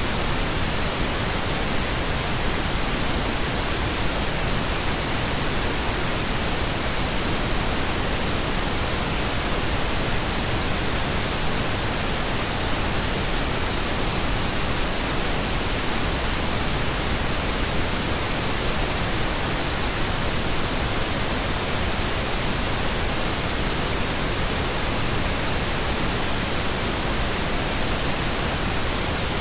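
Generated pink noise: a steady, even hiss that does not change.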